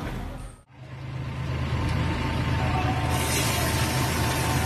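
Heavy diesel truck engine running steadily after a brief dropout near the start, with a rushing hiss coming in about three seconds in as the tipping dump truck's load of earth spills over the wall edge.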